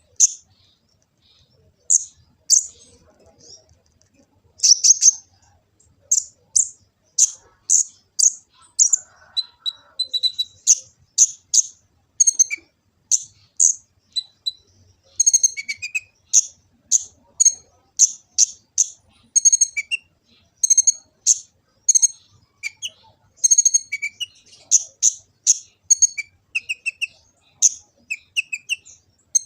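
Kolibri ninja sunbird singing full-song: fast runs of short, sharp, high chirps with brief pauses, dropping into lower twittering notes in the second half.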